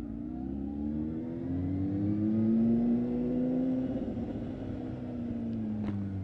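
Honda Hornet 600's inline-four engine, fitted with an aftermarket Micron exhaust, pulling the bike along; its note rises over the first three seconds, holds, then falls away near the end as the throttle is eased.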